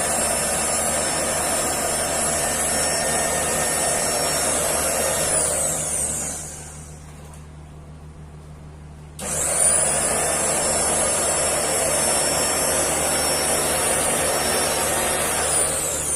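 Electric rotary fabric cutting machine's motor running with a high, steady whine, then switched off and winding down about six seconds in. It starts again suddenly about nine seconds in, runs steadily, and winds down again near the end.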